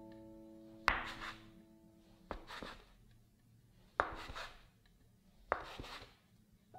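A steel blade chopping through a log of bread dough into a bamboo cutting board: four clean knocks of the blade on the board, about a second and a half apart.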